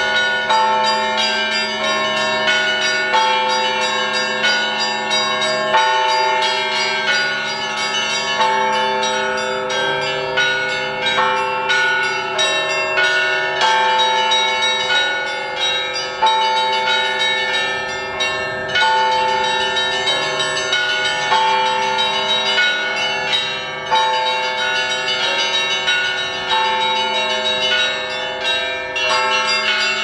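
Church bells ringing a fast, continuous peal: smaller bells struck several times a second over the longer-ringing tones of deeper bells.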